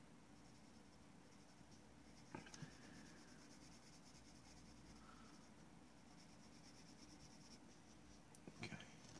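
Graphite pencil scratching faintly on paper in quick strokes while drawing. A couple of light knocks come about two seconds in and again near the end.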